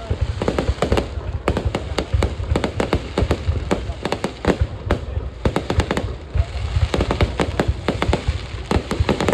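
Fireworks display going off: a rapid, irregular run of many bangs and crackles, several a second.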